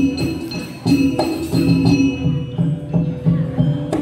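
Music: a quick, steady rhythm of struck low notes over held higher tones, with a sharp hit near the end.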